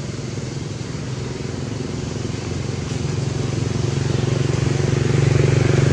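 An engine running at a steady pitch, a low drone that grows louder over the second half.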